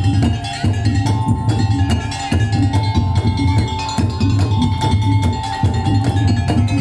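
Madurese daul (tongtong) percussion music: an ensemble of drums and wooden slit drums playing a fast, steady beat over a heavy bass drum, with a held melodic line on top.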